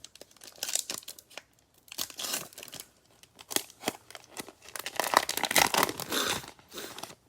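Trading card pack wrapper being torn open and crinkled, in several bursts of rustling with the densest stretch a little after the middle.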